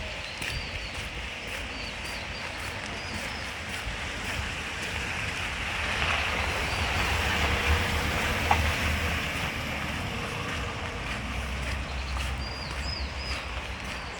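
Outdoor rushing noise, steady but swelling midway and easing off again, over a low rumble of wind on the microphone. A few faint high chirps come near the start and again near the end.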